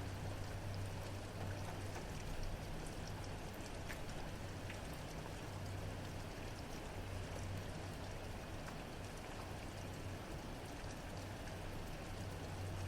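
Steady rain falling, with scattered sharp drips of drops striking nearby surfaces. A low hum underneath grows and fades several times.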